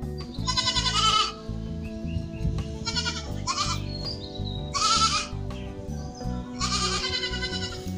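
Goats bleating, five wavering calls of about half a second each, two of them close together in the middle, over background music.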